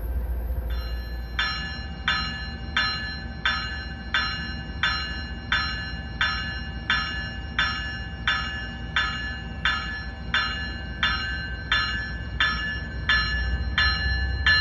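Commuter rail train's bell ringing steadily for departure, about three strikes every two seconds, over a low diesel rumble that grows near the end.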